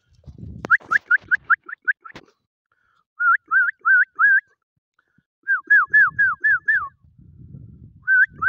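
A person whistling to call puppies: three runs of quick, short whistle notes, the first two runs of rising notes and the last of notes that sweep downward.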